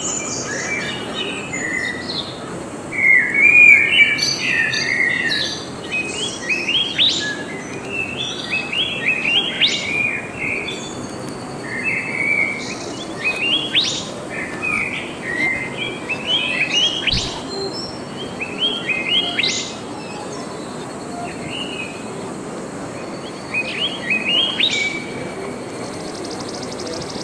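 Small birds chirping, many short quick notes and rising sweeps in repeated clusters, over a steady hum of outdoor background noise.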